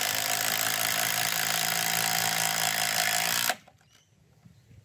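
Cordless impact driver hammering continuously as it drives a screw, then stopping abruptly about three and a half seconds in.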